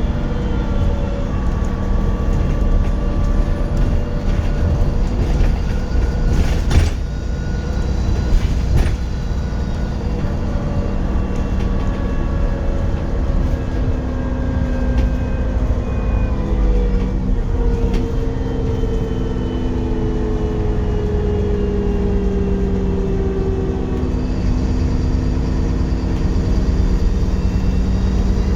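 Dennis Trident 2 double-decker bus under way, its engine and gearbox pitches sliding down and stepping as it changes speed, with a thin, high turbocharger whistle that rises near the end. Two sharp knocks about a third of the way in.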